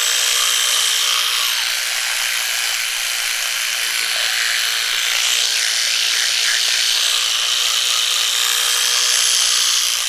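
A small electric bathroom appliance's motor running steadily, a constant whirring hiss with a steady whine.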